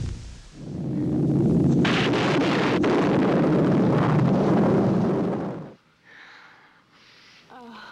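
A loud, dense rumbling noise from an experimental soundscape swells in just after the start, holds steady for about five seconds, then cuts off abruptly. Faint, scattered sounds follow, with a brief wavering glide near the end.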